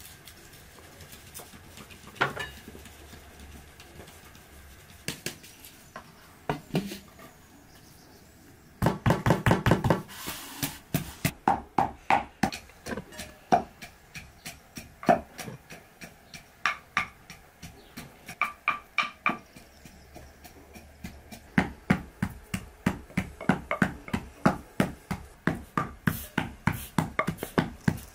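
Hand food-preparation sounds: faint sifting and a few soft knocks at first, then a run of knocks and taps, some with a metallic ring from a large metal basin. Near the end a wooden pestle pounds steadily in a mortar, about three strokes a second.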